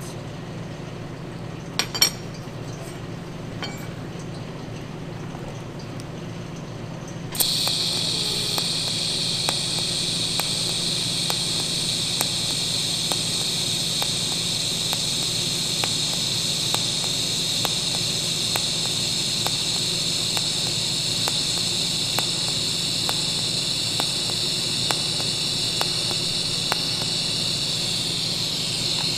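TIG welding arc on steel plate, struck suddenly about seven seconds in and then burning with a steady high hiss and faint, evenly spaced ticks. Before the arc there is only a low hum and a single sharp clack about two seconds in.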